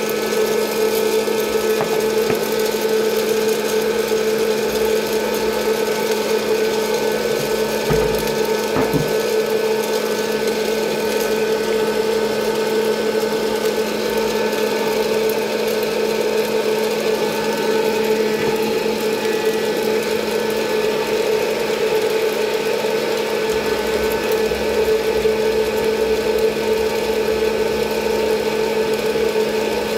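Presto Poplite hot air popcorn popper running, its fan motor giving a steady, unchanging hum.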